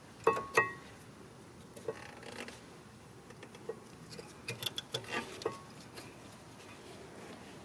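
Metal clinks, clicks and scrapes of brake pads and their spring clips being handled in the rear brake caliper bracket of a 2017 Kia Sedona. Two sharp, briefly ringing clinks come near the start, then a cluster of lighter clicks and taps about halfway through.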